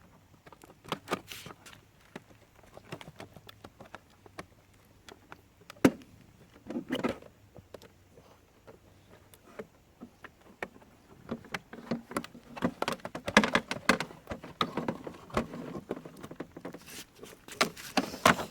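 Hands working the plastic filter container of a robotic pool cleaner: irregular clicks and knocks with some rustling as the container is opened to get at the collected leaves, busiest about two-thirds of the way through.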